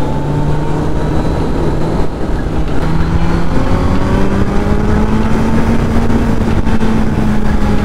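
Kawasaki Z900's inline-four engine pulling while riding, its pitch climbing slowly through the middle and then holding steady, under a heavy rush of wind and road noise.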